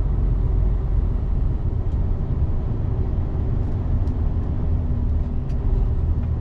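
Truck engine running at low speed, heard from inside the cab: a steady low rumble with a faint even hum.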